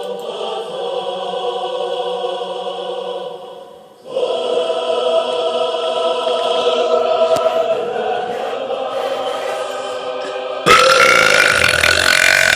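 Choral music with long held chords, breaking off briefly about four seconds in. Near the end a much louder harsh, noisy sound takes over for about two seconds and cuts off abruptly.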